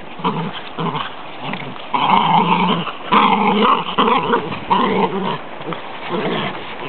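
Fox terriers growling at each other in a fight, in a run of short, loud growls, loudest about two and three seconds in.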